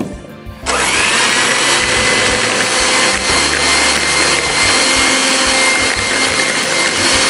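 Electric hand mixer switched on under a second in, its motor whining up to a steady high pitch and running steadily as its beaters whip egg, sugar and melted butter into a cream.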